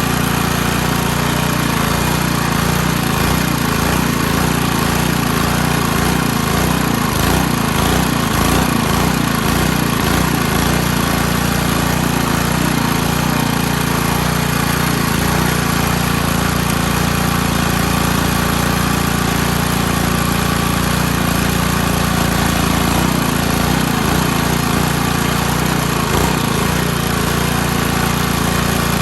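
A small petrol engine running steadily at a constant speed, with an uneven low flutter in places.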